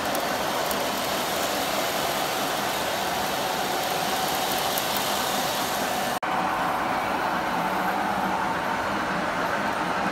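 Several model trains running on a layout: a steady rumble of wheels on the track with a faint motor whine. The sound drops out for an instant about six seconds in.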